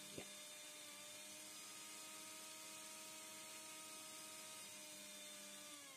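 Electric mixer grinder's motor running steadily, dry-grinding roasted oats and sugar into powder, heard as an even hum. Near the end it is switched off and the hum starts to fall in pitch as the motor spins down.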